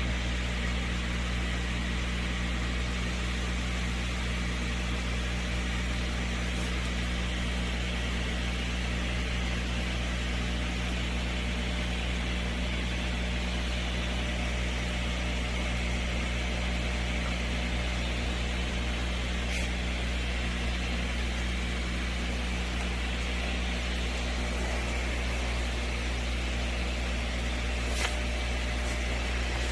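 Steady low hum with a hiss of moving water, from a goldfish aquarium's pump and filter running. A couple of faint clicks come about two-thirds of the way through and again near the end.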